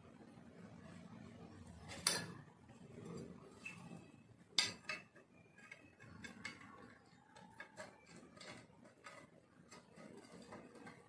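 Metal clinks and knocks from bolts, washers and metal tubing being handled and fitted together while a printer stand's leg base is assembled. There are two sharper knocks about two and four and a half seconds in, then a run of lighter ticks and clicks.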